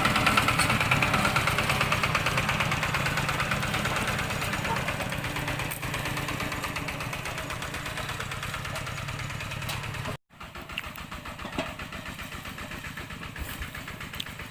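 Farm tractor engine running steadily, growing gradually fainter as it moves away. The sound drops out briefly about ten seconds in, then the engine runs on more quietly.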